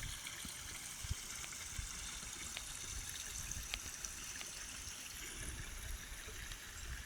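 A small stream or trickle of water running steadily, with a few faint clicks over it.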